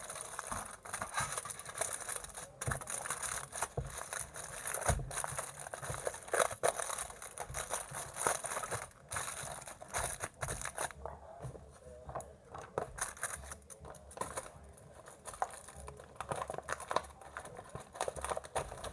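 Snack packaging rustling and crinkling as it is handled, with many small irregular clicks and crackles. The handling is busiest in the first half and grows sparser from about eleven seconds in.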